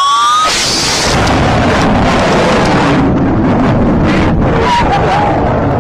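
Loud roar of a fighter jet making a very low, high-speed flyby. It holds steady for several seconds. A rising high-pitched tone sounds in the first half second before the roar covers it.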